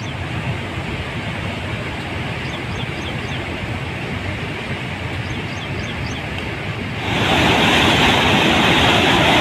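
Rushing floodwater, a steady loud rush of water. About seven seconds in it becomes louder and brighter with the rush of water pouring through opened dam spillway gates.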